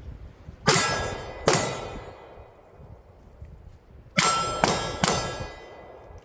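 Five pistol shots, two spaced about a second apart and then three in quick succession, each followed by the ringing clang of steel targets being hit.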